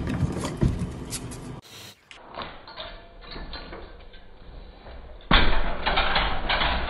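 A metal baby gate rattles as a cat climbs it, then crashes to the floor with a sudden loud clatter about five seconds in.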